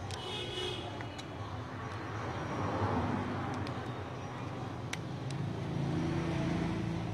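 Steady background rumble and hiss with a low hum, swelling about three seconds in, with a few faint clicks.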